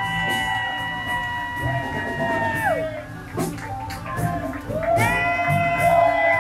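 Live band playing rock music: a long held high note bends sharply down just before the middle, and a new held note rises in about five seconds in.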